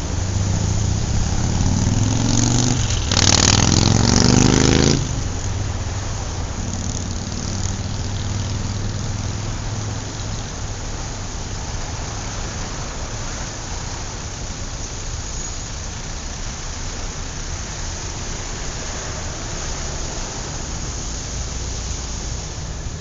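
Car engine running: a louder burst with rising pitch about three seconds in that cuts off sharply near five seconds, then a steady low running sound.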